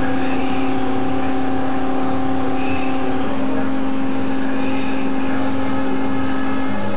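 Stepper motors of a hot-wire CNC foam cutter whining at a steady pitch as the axes move, the pitch shifting about three seconds in as the speed changes.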